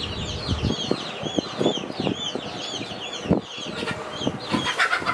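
Chickens calling with a steady run of high, arched peeps, about two a second. Scattered soft knocks and taps sound beneath.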